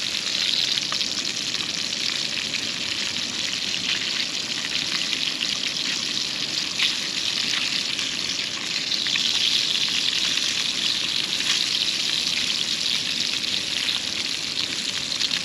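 Fish frying in a skillet over a campfire: a steady sizzle with scattered small pops.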